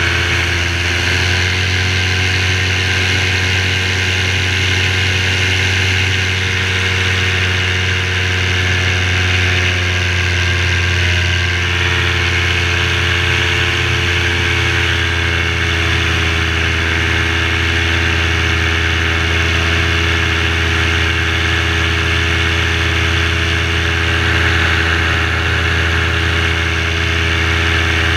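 Parajet V3 paramotor engine, freshly rebuilt and tuned, running steadily in flight with a rushing hiss over it; its pitch rises slightly in the first second and then holds even.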